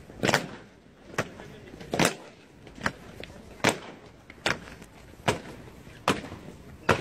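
Honour-guard soldiers' boots stamping on stone paving in a slow ceremonial parade march. Sharp, evenly spaced stamps come a little faster than one a second.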